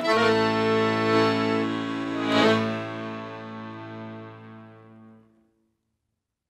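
Accordion music: a chord over a held low bass note, sustained and gradually fading away, dying out about five seconds in.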